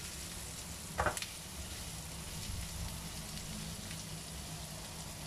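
Onions, chicken and curry leaves sizzling in a little hot oil in a non-stick wok as they are stir-fried with a spatula, the onions cooking until soft. A steady sizzle with the spatula scraping the pan, and one louder knock about a second in.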